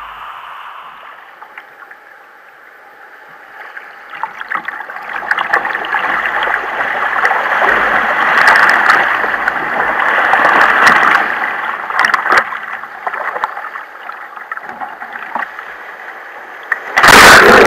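Water rushing and gurgling against a sit-on-top sea kayak as it moves through the sea, swelling louder for several seconds in the middle. A sudden loud burst of noise comes near the end.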